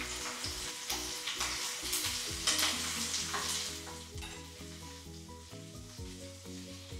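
Cumin seeds sizzling in hot ghee with garlic and chillies in a small pan, with scattered pops and a spoon stirring through them; the sizzle thins out after about four seconds. Soft background music with a slow run of notes plays underneath.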